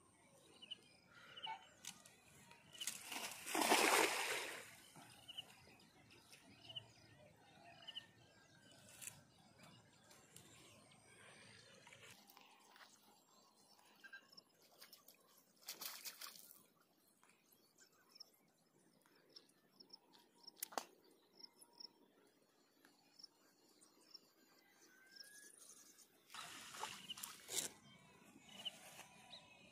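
A cast net hits the canal water with a splash about three seconds in. Two shorter splashes follow, about halfway through and near the end, as the net is hauled back out of the water.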